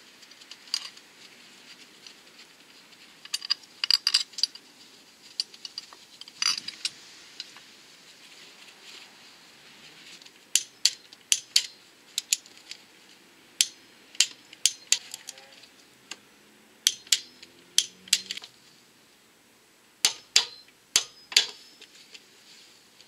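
Hand tools and bolts clinking and clicking on metal while the engine mounting is bolted back onto the cylinder head: short sharp clicks in scattered groups, coming faster in the second half.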